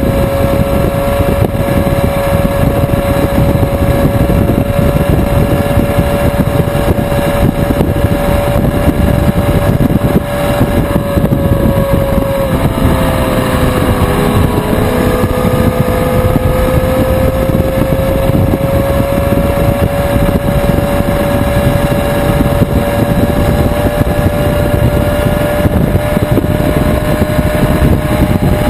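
Yamaha R6 inline-four sport bike engine running at steady cruising speed, with heavy wind rush over the mounted camera. About twelve seconds in the engine note drops, then climbs back slowly over the next several seconds as the bike picks up again.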